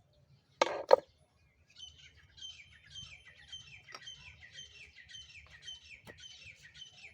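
Two short, loud bursts of noise about a second in, then a small bird chirping over and over, a quick falling high chirp about twice a second.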